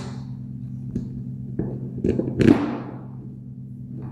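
Metal knocks, clicks and scrapes from handling the cast housing and wire guard of an explosion-proof ship's light fitting: a couple of single clicks in the first half, then a louder clattering scrape about two seconds in. A steady low hum runs underneath.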